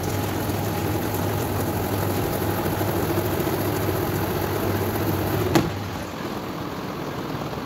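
Washing machine's spinner (spin-dryer drum) running, a steady motor hum with a whir over it as it spins washed clothes. A sharp click comes about five and a half seconds in, and after it the whir runs a little quieter.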